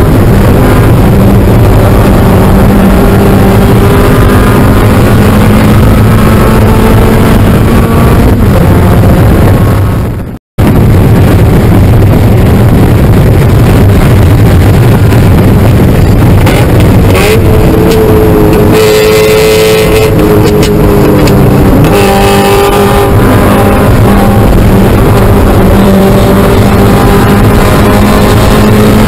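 Spec Miata race car's four-cylinder engine heard from inside the cockpit, running hard at around 6,000 rpm, its pitch rising under acceleration and falling at gear changes and braking. The sound cuts out for a moment about ten seconds in.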